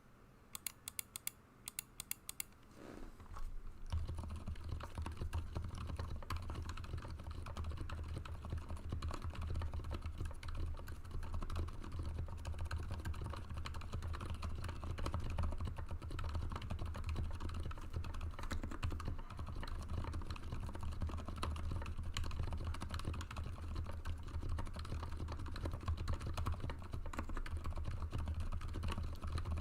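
Continuous fast typing on an Anne Pro 2 mechanical keyboard fitted with lubed Cherry MX Silent Red linear switches. A few sharp ticks in the first couple of seconds are followed, about four seconds in, by a dense unbroken stream of keystrokes.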